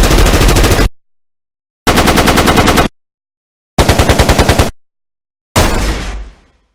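Automatic gunfire sound effect: four short bursts of rapid fire, about ten to twelve shots a second, with silence between them; the last burst trails off in a fading echo.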